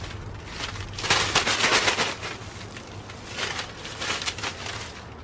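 Thin plastic grocery bag crinkling as it is handled, in two spells of dense crackling, the second about three seconds in.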